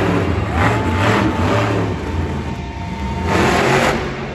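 Monster truck's supercharged V8 running hard in an arena, with two loud bursts of throttle, about half a second in and again near the end, as the truck accelerates up a ramp and jumps.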